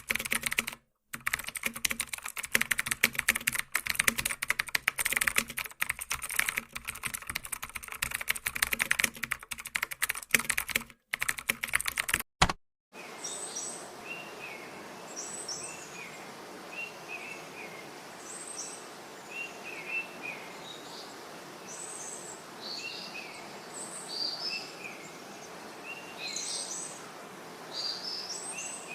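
Rapid, continuous clicking of typing on a computer keyboard, which stops a little under halfway through. After that comes a soft steady outdoor ambience with birds chirping in short repeated calls.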